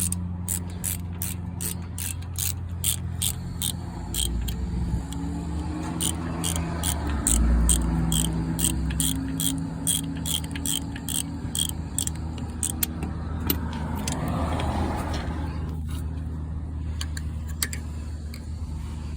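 Ratchet wrench clicking steadily, about three clicks a second, as a bolt is turned on the brake assembly. The clicks thin out after about thirteen seconds. A steady low hum runs underneath.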